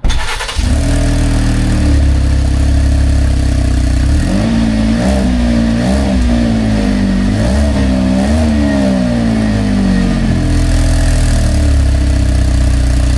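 2023 Chevy Traverse's 3.6-litre V6 starting abruptly and running loud through a leaking exhaust, revved a few times in the middle before settling back to idle. The leak is at an exhaust pipe torn from its bracket, which the mechanic puts down to the car hitting something on the road.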